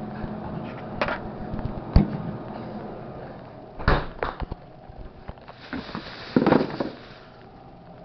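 Knocks and clunks of food containers being pulled out of a fridge and tossed out, with a longer crinkly rustle near the end, over a steady low hum.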